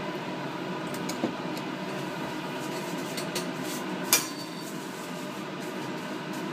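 Light clicks and clinks of metal forceps and plastic culture vessels being handled, the sharpest clink about four seconds in, over a steady background hum.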